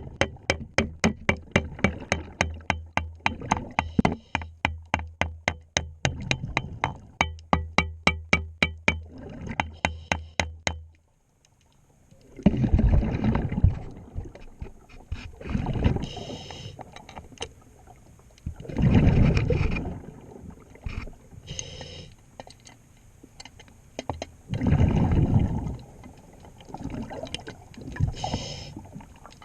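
Underwater sounds of a diver working on a boat's propeller. For about the first eleven seconds there is rapid, regular metallic ticking, about three to four a second, over a steady low hum. It stops abruptly, and after a moment the diver's regulator breathing takes over, with a bubbling exhale burst every few seconds.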